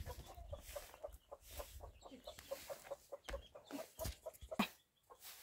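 Chickens clucking, short clucks repeated several times a second. A few sharp scuffs of footsteps on dry, stony ground come near the middle.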